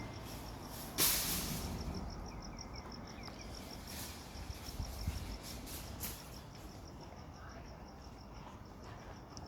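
Insect chirping outdoors: a high, even pulse about five times a second. A brief rush of noise comes about a second in, and faint bird chirps are heard around two to three seconds.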